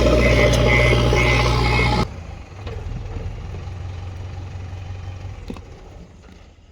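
JCB backhoe loader's diesel engine running loud and steady. About two seconds in, it drops abruptly to a much quieter engine hum that fades toward the end.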